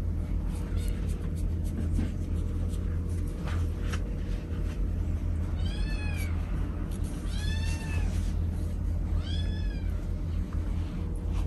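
Cat meowing three times, each call rising then falling in pitch, about a second and a half apart. A steady low rumble runs underneath.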